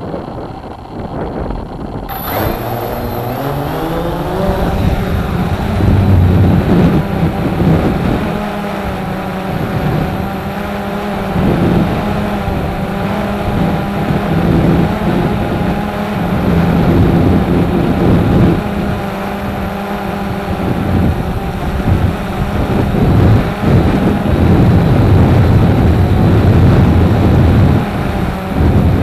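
Strong wind howling: a steady low drone with overtones that climbs in pitch over the first few seconds, then holds, swelling and fading in gusts.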